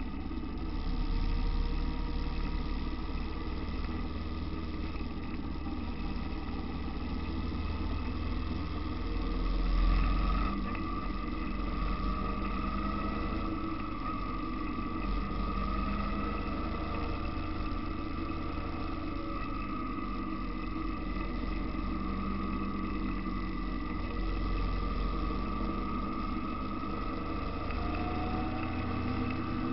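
Motorcycle engine running while riding, its pitch rising and falling with the throttle over steady wind rush, with a louder surge about ten seconds in.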